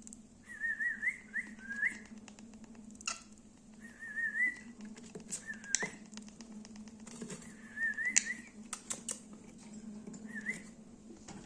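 Lovebirds chirping: about six short, warbling whistled phrases a second or two apart, with sharp clicks in between and a steady low hum underneath.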